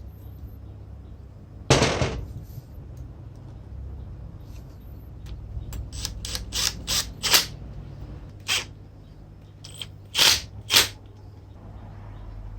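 Sharp clicks and knocks of tools and parts being handled in a workshop: one louder knock about two seconds in, a quick run of clicks in the middle and two more near the end, over a low steady hum.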